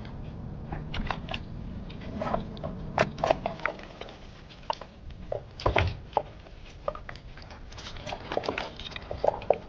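Irregular clicking, rattling and crackling of live crabs, shrimp and small fish being handled and sorted by hand.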